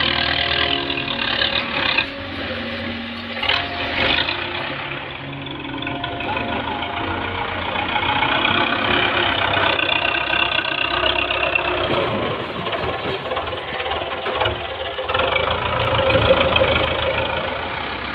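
Diesel tractor engine running under load, swelling and easing as its front dozer blade shoves down mud-brick walls, with a few knocks from falling earth and rubble.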